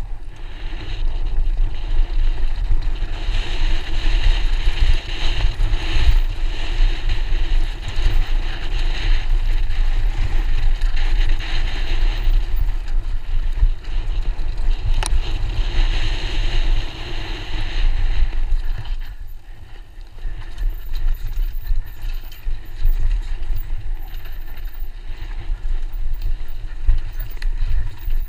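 Wind buffeting the microphone over the rumble of mountain bike tyres rolling fast down a dirt downhill trail, easing off for a moment about two-thirds of the way through.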